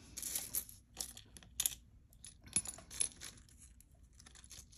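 Pieces of metal jewelry clinking together as they are handled and sorted in a pile: a string of light, irregular clicks and jingles.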